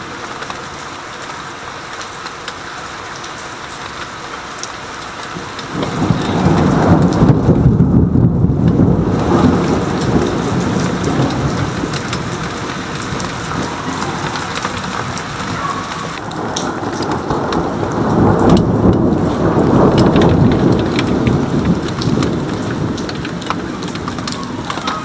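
Rain falling as a steady hiss. About six seconds in, thunder breaks out suddenly and rumbles for several seconds. A second long roll of thunder builds about sixteen seconds in and fades away.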